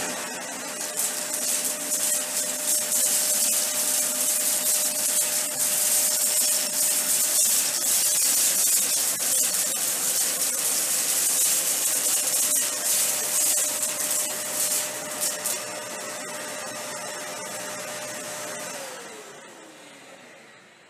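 Dyson Ball Animal 3 upright vacuum running with a steady whine and hiss over low-pile carpet, with crackling as seeds, peas and crushed cereal are sucked up. Near the end it is switched off and the motor winds down, its pitch falling as it fades.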